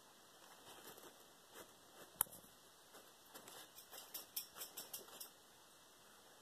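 Faint scattered clicks and light scratching of leopard geckos' claws on a plastic tub, with one sharp click about two seconds in and a quick run of ticks in the second half.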